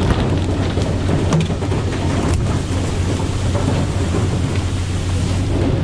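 Steady hiss and splatter of water spray jetting from a pole-and-line tuna boat's side onto the sea, over a steady low hum from the boat's engine.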